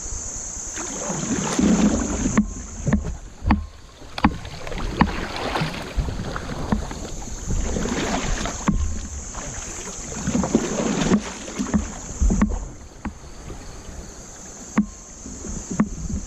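Fast flood water rushing and splashing around a kayak, the noise swelling and easing every few seconds, with scattered sharp knocks.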